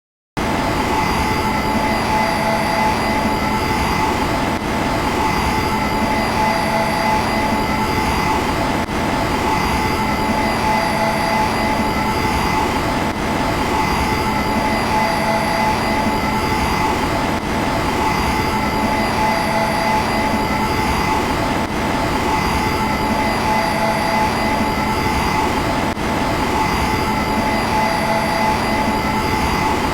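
Close-up idle engine hum of the C-9979 droid landing craft sound effect: a steady drone with several high whining tones held over it. It starts about half a second in and repeats as a loop about every four seconds.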